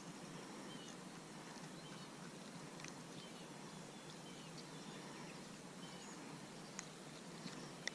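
Faint outdoor ambience: a steady low hiss with short high bird chirps every second or two, and a couple of small clicks near the end.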